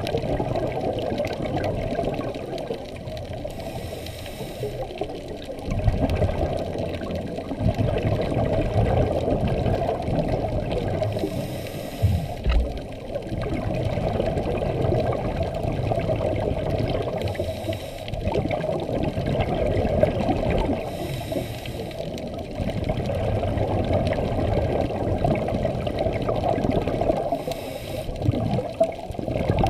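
Scuba regulator breathing heard underwater through the camera housing: a short hiss on each of about five inhales, each followed by a longer burble of exhaust bubbles, in a slow, uneven cycle.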